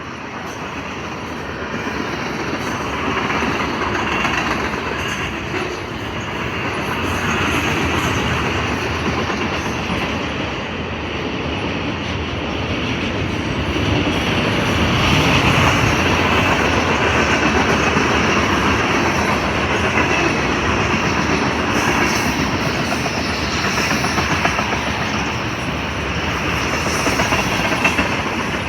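Freight train cars rolling past, with a steady rumble and wheels clacking over the rail joints, getting louder over the first half.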